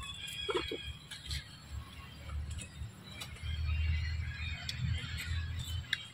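Outdoor ambience: an uneven low rumble, louder in the middle, with scattered small clicks and faint bird chirps.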